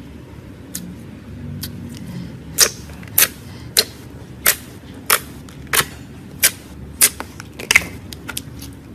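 Clear slime being pressed and worked, giving a regular series of sharp pops and clicks, a little more than one a second, starting a couple of seconds in, over a low steady background hum.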